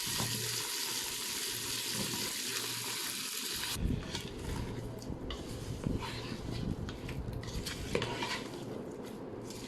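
Cassava pieces frying in oil in an electric pressure cooker's inner pot on its stir-fry setting: a steady sizzle for about the first four seconds, then a spatula stirring, scraping and knocking against the pot as the sizzle thins.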